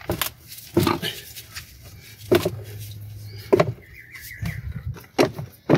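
A long bar striking a corroded battery hold-down bracket about six times, at uneven intervals, to bash it down because its rod is seized in place.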